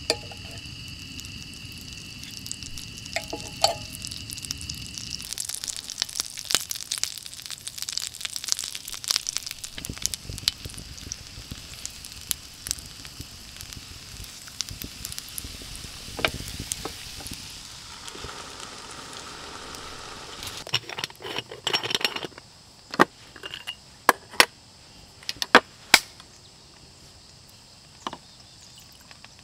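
Butter and croissant dough sizzling and crackling in a hot waffle iron. Near the end come a few sharp clicks and knocks of kitchen gear being handled.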